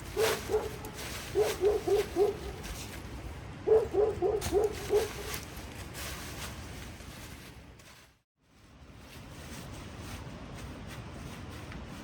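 A dog barking in quick runs of four or five short barks, three runs within the first five seconds, then steady background hiss.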